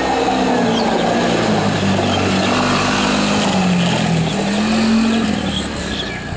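Small engine of a children's quad bike running as it is ridden, its pitch rising and falling with the throttle. It is loudest about five seconds in, then fades a little as the quad moves away.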